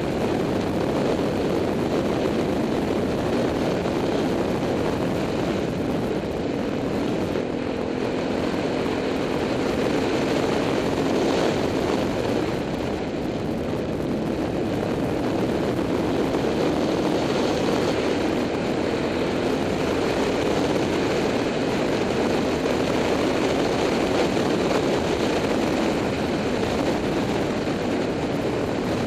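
Motorcycle riding at a steady speed: a constant rush of wind over the action camera's microphone mixed with the engine's drone. A faint engine note shows through for a few seconds about a quarter of the way in.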